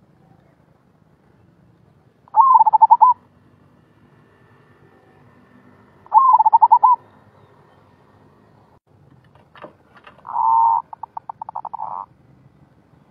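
Zebra dove (merbok) cooing in the rolling 'gulung' style: three trilled coos about four seconds apart. The last is longer and breaks into a run of quick stuttering notes.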